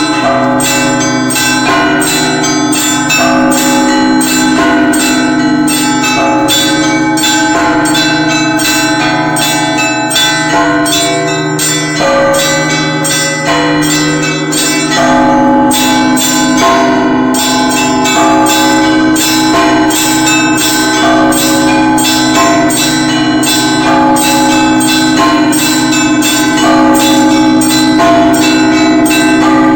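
Russian Orthodox church bells rung together in a zvon: a set of smaller bells struck in a fast, continuous rhythm over the low, sustained hum of the larger bells.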